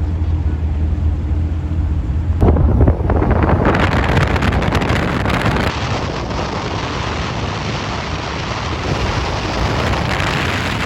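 Car engine droning low and steady, then a knock about two and a half seconds in, after which a loud, even rush of wind and road noise takes over.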